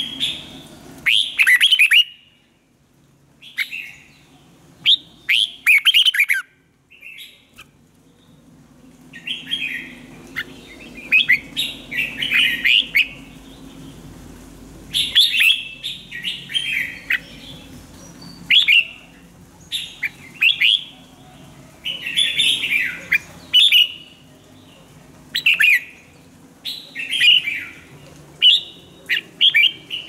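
Red-whiskered bulbul singing: short, quick warbled phrases repeated every second or two, with a couple of brief pauses, over a faint low hum.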